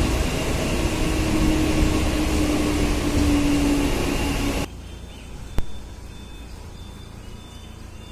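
Mumbai local electric train running, a heavy rumble with a steady motor whine that slowly falls in pitch. About four and a half seconds in, the sound suddenly drops to a much quieter hum, with a single sharp click about a second later.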